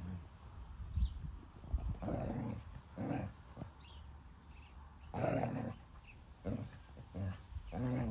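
Deutscher Jagdterrier play-growling at a young kitten while wrestling it, in about six short rough bursts. The longest and loudest burst comes about five seconds in.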